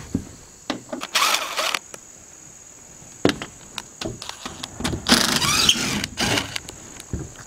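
Cordless drill-driver whirring as it backs screws out of a corrugated tin roof panel. There is a short run about a second in and a longer, louder run about five seconds in with its pitch rising, and sharp clicks and knocks on the tin in between.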